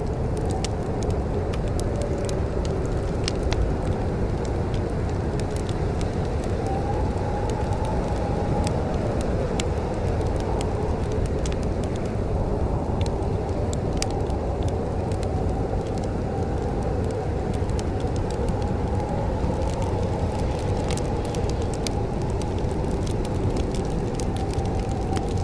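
Wood fire crackling in a fireplace, with scattered sharp pops and snaps over a steady low rumble and a faint wavering whine.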